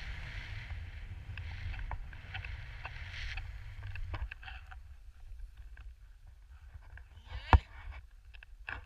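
Skis hissing through powder snow in turns, over a low wind rumble on the microphone. The hiss fades about halfway through, and a single sharp knock, the loudest sound, comes near the end.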